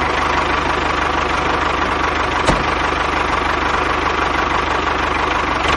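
Mini toy tractor running steadily, giving a fast, even engine-like chugging.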